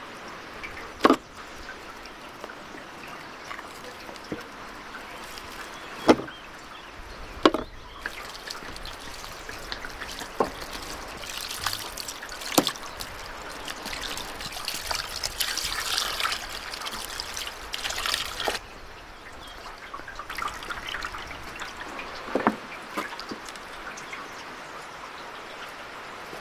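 Water poured from a terracotta jug splashing and trickling over a raw goat carcass on a wooden platter, for about ten seconds in the middle, as the meat is washed. Several sharp knocks, the loudest near the start, from the carcass and platter being handled.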